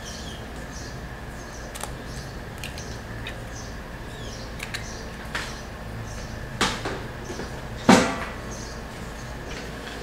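Light clicks and taps of an egg being handled and cracked into a nonstick frying pan on a gas stove, picked up by a camera's built-in microphone over a steady low hum. There are two sharper knocks about six and a half and eight seconds in, the second the loudest.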